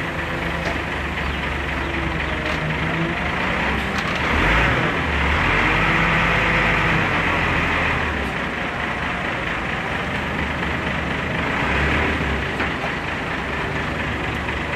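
Forklift engine running steadily, with a louder stretch from about four to eight seconds in and a brief swell near twelve seconds.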